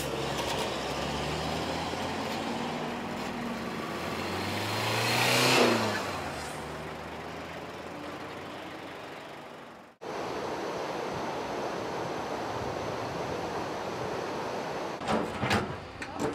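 Loaded truck's engine running as it drives past, growing louder to about five and a half seconds in, then fading away with a falling pitch. About ten seconds in, a sudden cut to a steady rushing noise.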